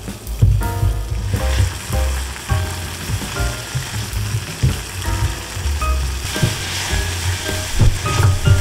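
Sliced onion and shredded crab sticks sizzling in a sauce as they are stir-fried in a pan, with a spoon scraping and knocking against the pan while it stirs them.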